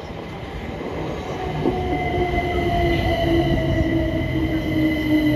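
Southern Class 377 Electrostar electric multiple unit running into the platform and past, growing louder. Its electric whine sinks slowly in pitch as the train slows, and a steady high squeal joins it about two seconds in, over the rumble of the wheels on the rails.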